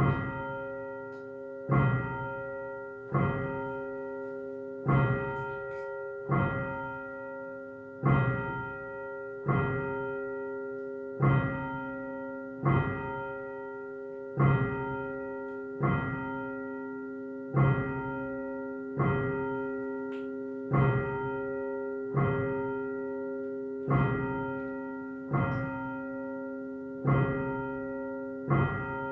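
A single church bell rung over and over, about one strike every second and a half. Each strike sounds the same note, which rings on into the next one.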